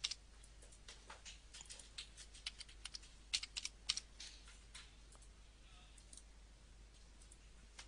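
Computer keyboard being typed on: a run of faint, irregular key clicks that stops about six seconds in.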